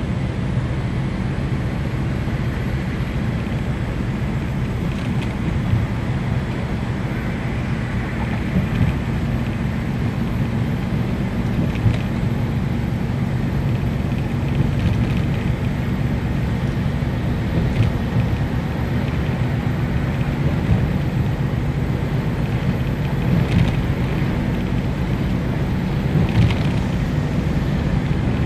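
Inside the cab of a tractor-trailer truck cruising on a motorway: a steady low engine drone and road noise, with a few faint clicks.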